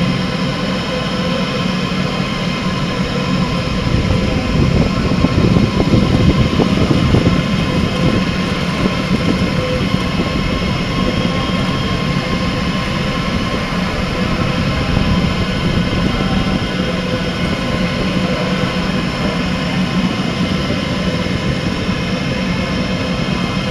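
Delta WASP 3MT delta 3D printer with a pellet extruder running: a steady mechanical drone carrying a whine of several steady tones from its motors and extruder, swelling slightly a few seconds in.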